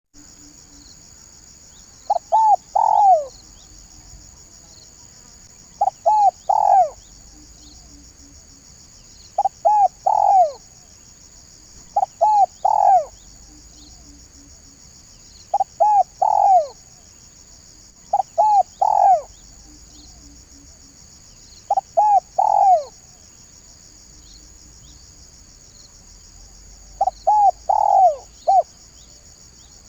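Spotted dove (tekukur) cooing: a phrase of two or three quick coos ending in a longer, falling coo, repeated about every three seconds, eight times. The last phrase has a few extra notes.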